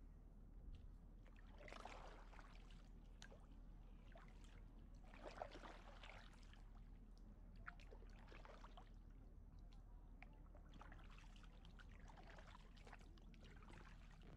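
Faint splashing and trickling of a double-bladed kayak paddle dipping into calm water, about five strokes, one every two to three seconds.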